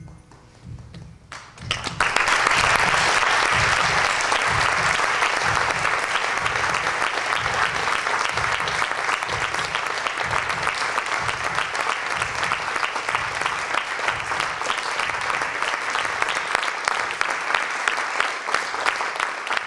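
Theatre audience applauding at the close of a dance performance, breaking out suddenly about two seconds in and continuing steadily.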